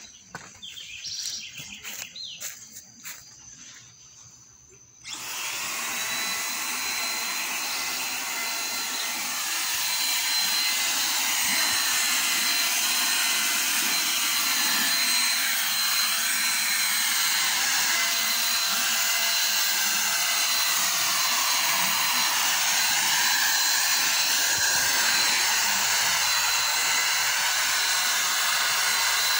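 Handheld electric paint sprayer switching on about five seconds in and then running steadily, a loud motor noise with a thin high whine, as it sprays paint onto a metal gate. A few light clicks come before it starts.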